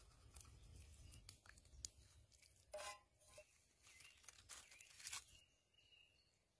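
Faint rustling, crunching and clicking of food being handled in a wooden bowl, with a louder rustle about three seconds in.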